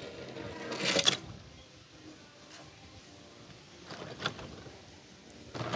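A small die-cast toy car drops off a wooden table into a tub of water with a short splash about a second in. A second, fainter splash or knock comes near four seconds.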